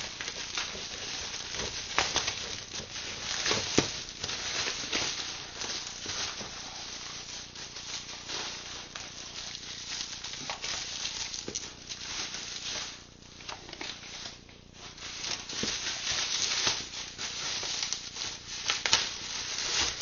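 Plastic packaging rustling and crinkling continuously as it is handled and pulled off a laserdisc box set, with many small crackles and a few sharper snaps.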